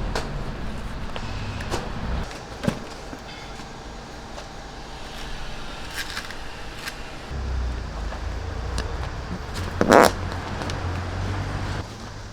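A vehicle engine's low rumble, which fades about two seconds in and returns after about seven seconds. Scattered sharp clicks run throughout, and a short, louder noise comes near the end.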